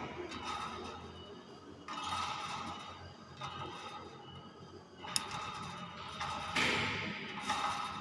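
Hill myna giving a series of harsh, noisy calls in about four bursts, the loudest near the end, with a sharp tap about five seconds in.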